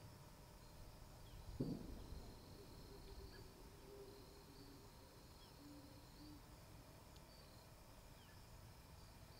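Near silence: faint outdoor ambience with a faint steady high-pitched hum, and one brief knock about one and a half seconds in.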